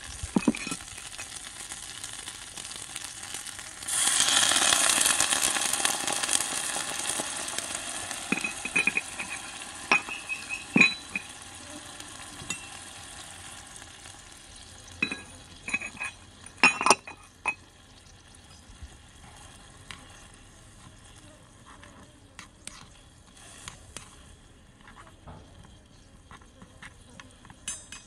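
Food frying in a tiny wok, with a sudden louder surge of sizzling about four seconds in that slowly dies down as water goes into the hot pan. A metal spoon stirs, scrapes and clinks against the wok, in a few sharp clinks around the middle, before the pan settles to a quiet simmer.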